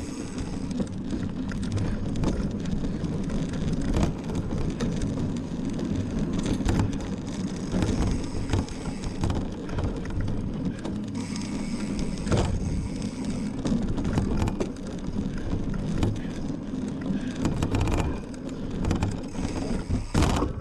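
Mountain bike being ridden over rough off-road ground: a steady low rumble of tyres on the trail, broken by frequent short rattling knocks from bumps.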